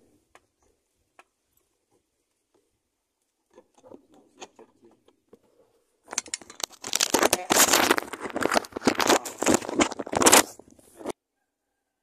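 Faint clicks and light rustling, then from about six seconds in a loud dense crackling and rustling noise that stops abruptly about a second before the end.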